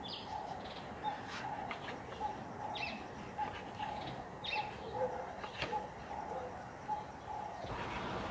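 Chef's knife slicing grilled steak on a wooden board, with a few sharp clicks of the blade against the board. Behind it a bird calls over and over with short notes, about two a second.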